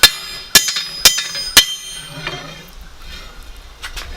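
Blacksmith's hammer striking a steel crowbar on the anvil during forging: four hard, ringing blows about half a second apart, then a pause and a couple of lighter strikes near the end.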